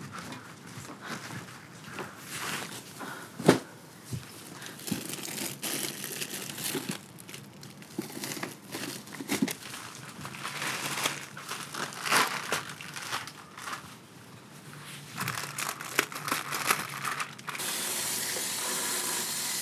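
Plastic grocery bags and food packaging rustling and crinkling as groceries are unpacked, with occasional knocks as items are set down. Near the end a sink tap starts running with a steady hiss.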